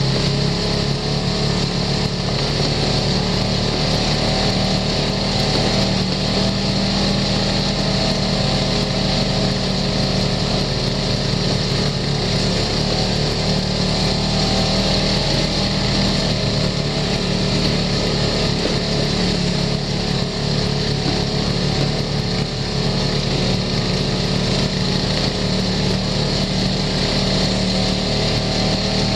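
Side-by-side UTV's engine running steadily as it drives along a dirt trail, heard from on board: a constant drone with no pauses.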